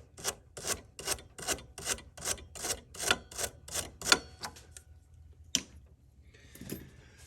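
Rhythmic hand scraping or rubbing strokes, about three a second, that stop after about four seconds, followed by a single sharp click.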